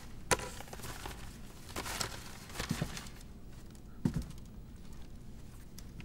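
Quiet handling sounds: a few soft knocks and clicks with a brief paper rustle as a folded paper edict is picked up from a desk and opened.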